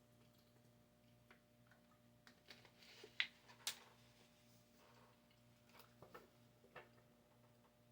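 Tarot cards being handled: a few soft, irregular clicks and taps, the sharpest a little after three seconds in, with another small cluster around six seconds, over a faint steady hum.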